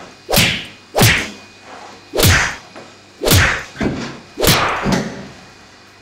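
Fake punch sound effects: a run of about seven whooshing thwacks over some five seconds, the five loudest roughly a second apart, dubbed onto a beating in a fight scene.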